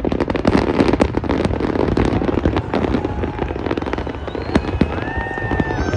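Fireworks display going off: a dense run of rapid bangs and crackles, thickest in the first second and a half and thinning a little after.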